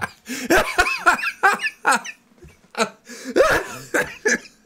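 A person's voice in short bursts without words, its pitch bending up and down, like laughing or coughing.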